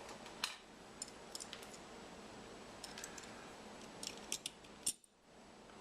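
Light, sharp metallic clicks and ticks of small dial-caliper screws and parts being handled and set down, about a dozen of them at irregular intervals.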